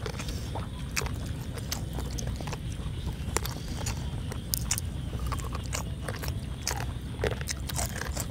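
Close-up eating sounds of two people biting into and chewing boiled pig cheek with fresh herbs: many short wet clicks and crunches, with fingers tearing at the meat. A steady low rumble of wind on the microphone lies underneath.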